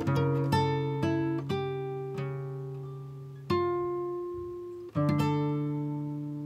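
Background music on acoustic guitar: plucked notes and chords, a quick run of notes at first, then single notes about three and a half and five seconds in, each left to ring and fade.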